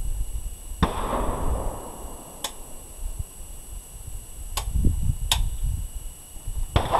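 Gunshots on a shooting range. A sharp crack with an echoing tail comes about a second in and another near the end, with three fainter, thinner shots between them, over a low rumble.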